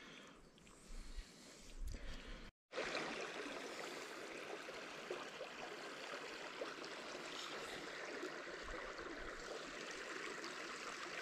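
Steady rushing of the Upper Mersey River's flowing water. After a short break about two and a half seconds in, the rush is louder and even.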